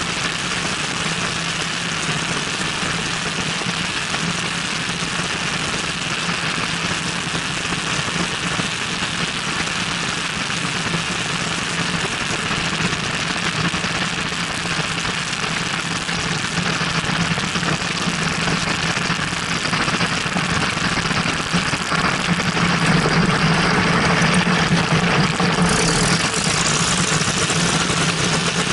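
Cessna 172N's Lycoming O-320 four-cylinder engine and propeller running steadily at reduced power on final approach, under heavy wind rush on the outside-mounted microphone. The sound grows louder over the last ten seconds, and a brighter hiss comes in a few seconds before the end as the wheels near the runway.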